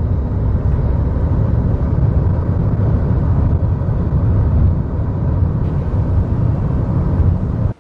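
Steady low rumble of a moving road vehicle, cutting off abruptly near the end.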